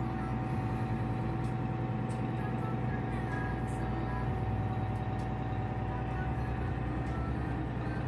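Ship's engine-room machinery running steadily: a deep, continuous hum with a thin, steady whine above it.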